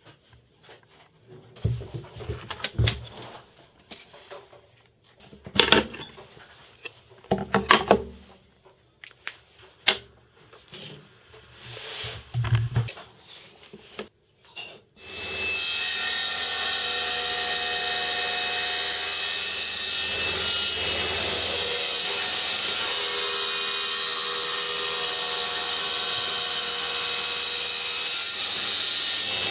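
Scattered knocks and clicks of tools being handled on a wooden bench, then about halfway through a table saw starts and runs steadily, cutting a sheet of Perspex (acrylic).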